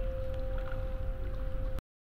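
Soft background music with a long held note over a low rumble. It cuts out abruptly to dead silence for a moment near the end.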